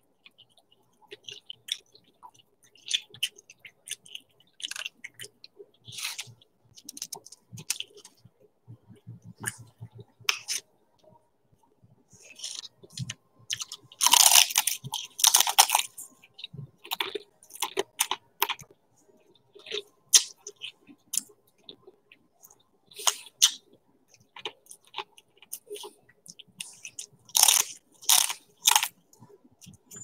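Close-miked chewing and crunching of crisp snack food, irregular crackly bites, with louder bursts of crunching around the middle and again near the end.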